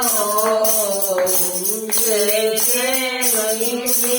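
Haryanvi bhajan music: a gliding melody line over a steady drone, with jingling percussion shaken in a beat about twice a second.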